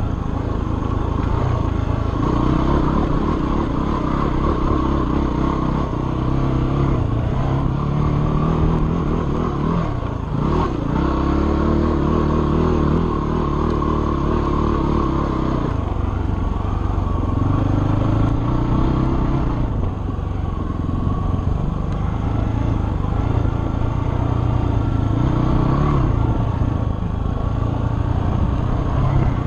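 Dirt bike engine running while being ridden on a trail, its revs rising and falling again and again with the throttle and gear changes, with a sharp drop and climb about ten seconds in.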